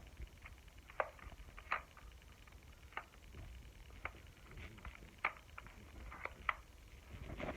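Light clicks and knocks of a plastic Nerf blaster being handled and worked to show its features: about a dozen short, scattered sounds over several seconds.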